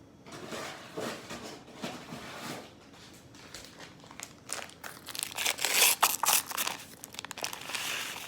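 Paper instant-oatmeal packets crinkling and tearing as they are handled, with a busier, louder stretch of rustling about five to seven seconds in.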